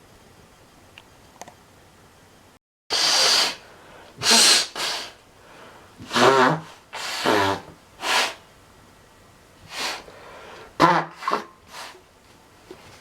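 A person in a fit of allergy sneezing: about nine loud, short bursts, some with a voiced cry, starting about three seconds in.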